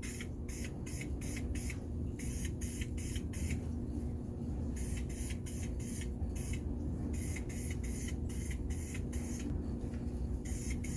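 Aerosol can of Duplicolor wheel paint spraying in many short, quick bursts of hiss, laying light coats onto a wheel. A steady low hum runs underneath.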